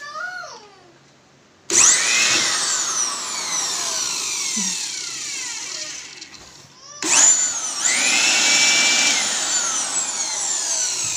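Ingco AB4018 400 W electric blower switched on twice. Each time its motor spins up at once to a loud, high whine and runs about five seconds, with a short break between the two runs.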